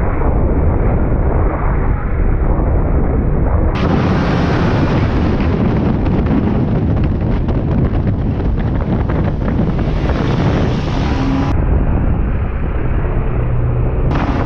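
Wind buffeting hard on the microphone of a motorcycle riding at speed, over engine and road noise. The sound's character changes abruptly a few times, as at clip joins.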